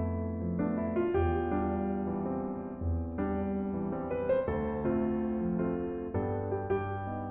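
Background music: piano notes played over a bass line.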